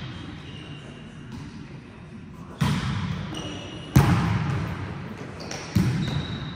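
A volleyball struck three times in a rally, with sharp hits about one and a half seconds apart, the second the loudest, each followed by an echo in a large hall.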